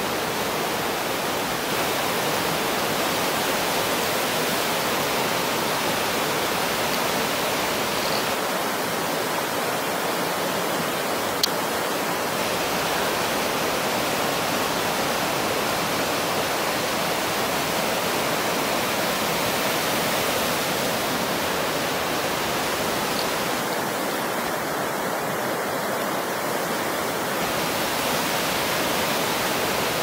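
Mountain stream rushing steadily down granite cascades and small falls. One short click sounds about a third of the way in.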